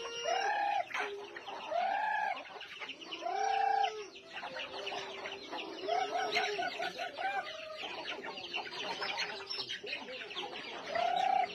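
A flock of chickens clucking and calling: a few drawn-out calls near the start, a quick run of clucks about six seconds in, and another call near the end, over the busy chatter of the flock.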